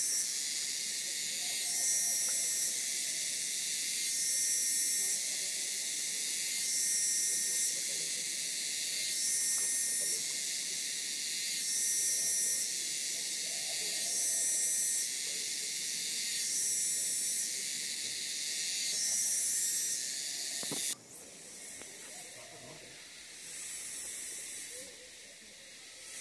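High-pitched buzzing forest chorus that swells and fades about every two and a half seconds. About 21 seconds in it cuts abruptly to a quieter, thinner stretch of the same kind.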